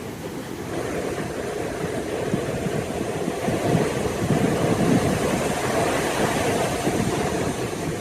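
Big surf breaking on the beach, a rushing noise that swells about a second in and is loudest around the middle, with wind on the microphone.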